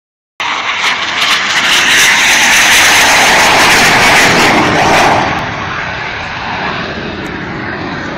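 Jet aircraft flying a low pass at an air show: loud engine noise that builds over the first two seconds, holds, then falls away a little after five seconds to a quieter, steady rumble.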